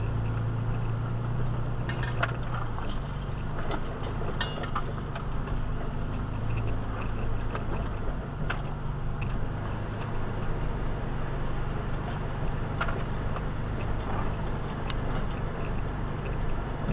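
A 4x4's engine running at low, slowly varying speed, a steady low drone, with scattered clinks and knocks of the vehicle working over a rough trail.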